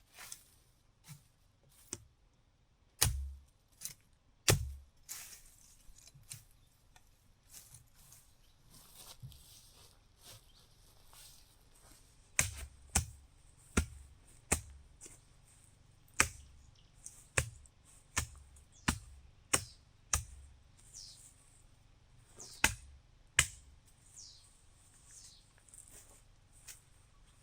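A series of sharp knocks, each with a dull thud beneath it. Two loud ones come a few seconds in, then a steady run of knocks about every three-quarters of a second, before they thin out near the end.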